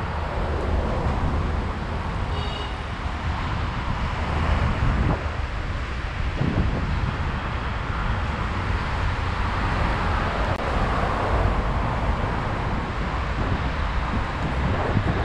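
Wind buffeting the microphone on a moving bicycle, with steady rumble from the road and passing traffic. A brief high-pitched tone sounds about two and a half seconds in.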